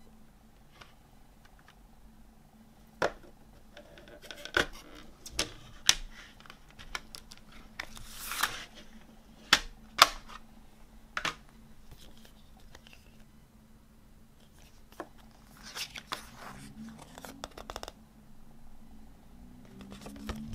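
Plastic CD jewel case being handled and opened: a series of sharp clicks and snaps, with a brief sliding swish among them. Later comes a softer rustling of the paper booklet being handled.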